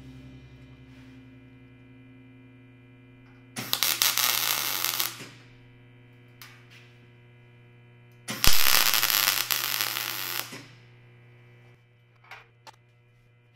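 MIG welder laying two short plug welds on the steel floor-pan brackets to stand in for spot welds: two bursts of arc noise, the first about a second and a half long, the second about two seconds, over a steady hum. A couple of light clicks near the end.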